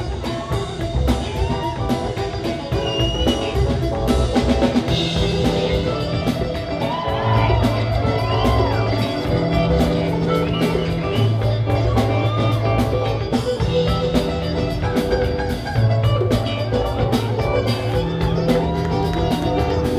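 A band playing fusion music: a drum kit keeping a steady beat under a bass line of long held notes that change about every two seconds, with a gliding, bending melody line above.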